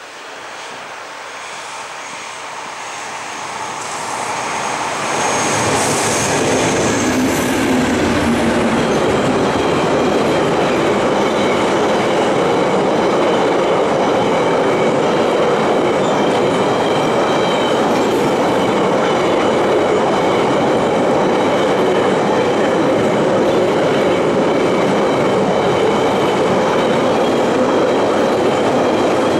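A freight train of empty double-deck car-transporter wagons passing close by. It grows steadily louder as the locomotive approaches and goes by about five seconds in, then gives a steady loud rolling clatter of wagon wheels on the rails, with thin high steady tones over it.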